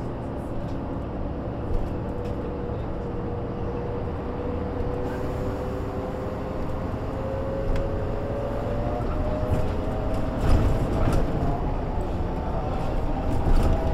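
MAN NG 312 articulated bus under way, heard from on board: the diesel engine and driveline run with a whine that rises slowly and steadily in pitch as the bus picks up speed. A few sharp knocks come near the end.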